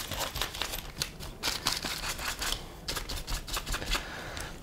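Stiff-bristled brush scrubbing dirt off an RC buggy's chassis, a run of quick, irregular scratching strokes.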